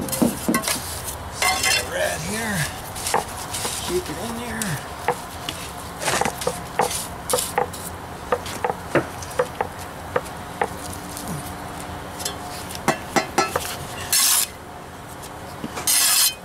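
Steel trowel working wet mortar into the joints between flagstones: scattered sharp clicks and taps of the blade on stone, then two short scrapes near the end.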